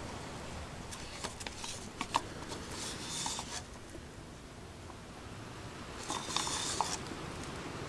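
Scratchy rubbing and scraping with small clicks and taps, from handling a cup of resin while pouring it. It comes in two spells, starting about a second in and again near the end.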